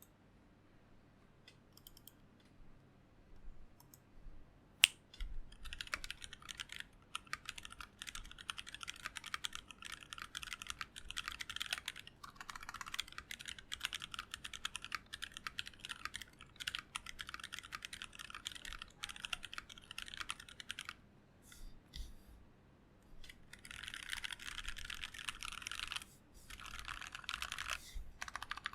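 Typing on a mechanical keyboard with factory-lubed 78 g Seal linear switches, a brass plate and ABS blank keycaps. A few scattered keystrokes and one sharp, louder click come first; about five seconds in, fast continuous typing begins, breaks off for about two seconds well past the middle, then resumes.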